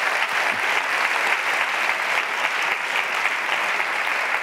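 Studio audience applauding steadily after a punchline, easing off slightly near the end.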